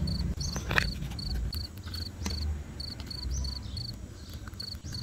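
A cricket chirping steadily, short high chirps two to three times a second, with a couple of light knocks from wooden lathe parts being handled.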